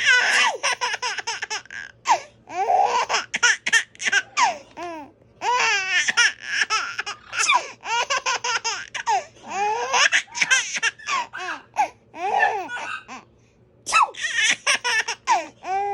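A baby laughing hard in repeated bouts of quick, high-pitched laughs, with brief pauses between the bouts.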